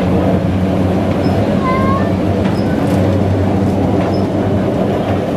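Vintage Rhaetian Railway electric locomotive No. 182 moving slowly past with a tank wagon: a steady low electric hum over the rumble of wheels on track. A few brief high squeaks about two seconds in.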